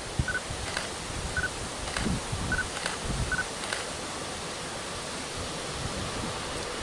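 Wind blowing on the microphone, gusting in the first few seconds and then easing to a steady outdoor hiss. A short, high-pitched tone repeats about once a second four times in the first few seconds, with a few faint clicks.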